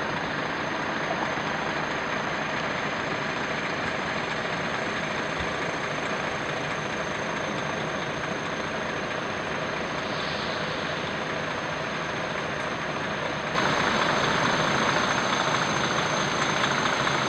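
Heavy lorry diesel engines idling steadily, growing louder about three-quarters of the way through.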